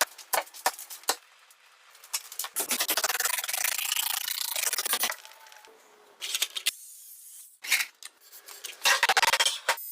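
A carving tool working wood, scraping and rasping across the surface. Short sharp clicks and cuts come first, then a long stretch of scraping strokes about a third of the way in, and another burst of scraping near the end.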